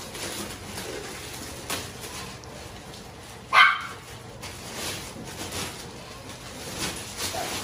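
A single short dog bark about three and a half seconds in, the loudest sound here, over the faint rustle and scrape of foam puzzle floor mats being handled.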